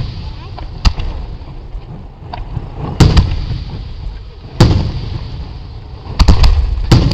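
Aerial firework shells bursting: a string of sharp booms a second or two apart, with several coming in quick succession near the end, each trailing off in a low rumbling echo.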